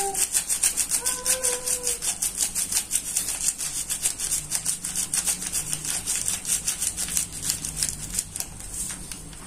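Granular seasoning being shaken out of a plastic-foil sachet into a tablespoon: a rapid, even rustling at about seven strokes a second that fades near the end.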